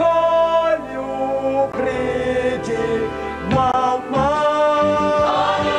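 Voices singing together in long held notes over backing music, with a slide up into a new sustained note about three and a half seconds in.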